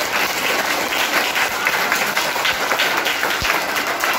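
Audience in a hall applauding: many people clapping steadily.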